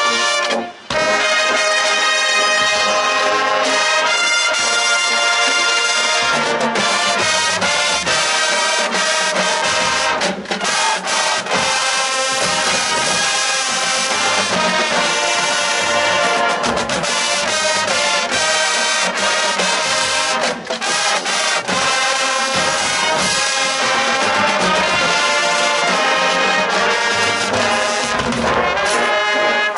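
High school marching band playing, brass to the fore with trombones and trumpets, loud and sustained. There is a brief break about a second in.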